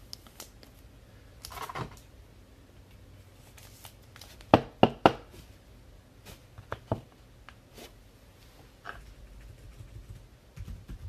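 Trading cards and card packs being handled: light rustling and soft ticks, with three quick sharp clicks about four and a half seconds in as the loudest sounds.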